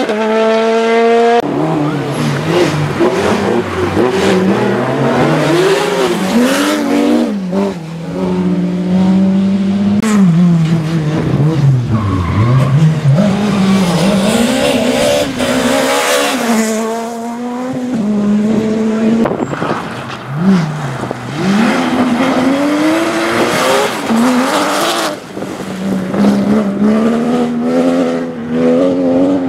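Rally cars driven hard on a stage, engines revving up and down again and again through gear changes and lifts off the throttle, with tyres squealing at times.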